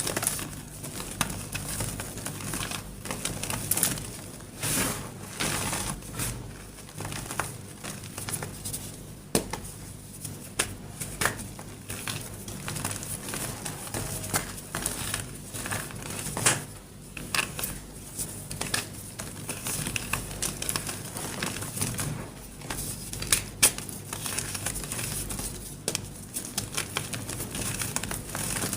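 A painted gym chalk heart being crushed, giving a continuous run of irregular crunches and crackles with a few sharper, louder snaps among them.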